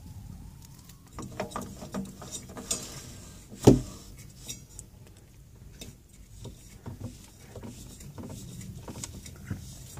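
Irregular clicks, taps and light scrapes of a spin-on filter cartridge being handled and screwed onto its mount on the engine, with one sharp knock a little under four seconds in.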